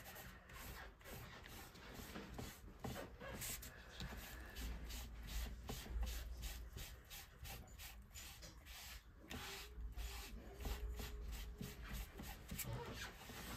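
Faint, quick, repeated rubbing strokes of wiping ink off a hot-foiled cardstock panel by hand.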